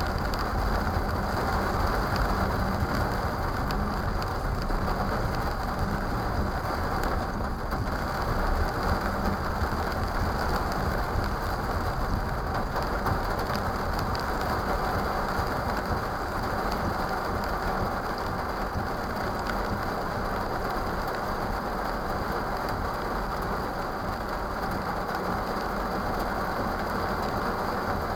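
Steady rain on a car, a continuous hiss with a low rumble underneath, picked up by a dashcam's microphone inside the cabin.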